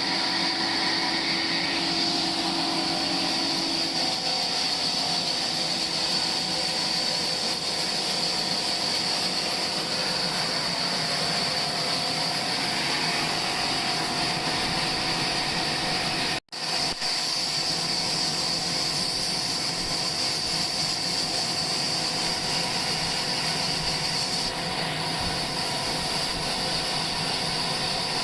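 Sawmill saw running steadily as it cuts through a log.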